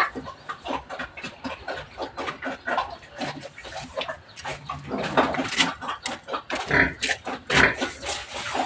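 Pigs in their pens grunting and squealing at feeding time, with louder calls a little past halfway and again near the end.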